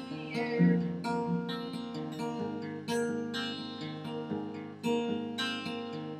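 Acoustic guitar strumming chords in a steady rhythm, with a few harder strums standing out.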